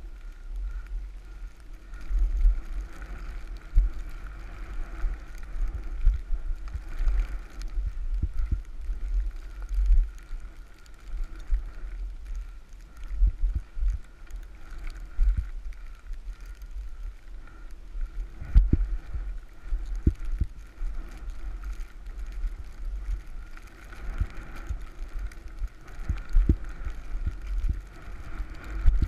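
Low wind rumble on an action camera's microphone while riding down through deep powder, broken by irregular thumps as the board and camera jolt over the snow.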